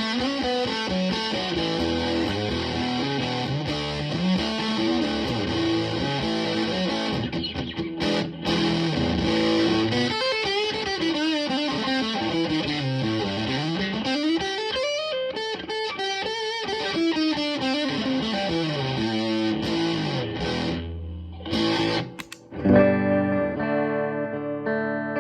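Electric guitar through a DIY fuzz pedal with the fuzz all the way up, into a Fender Super Champ tube amp: riffs with long slides down and up the neck, a short break about three quarters through, then a chord left ringing near the end.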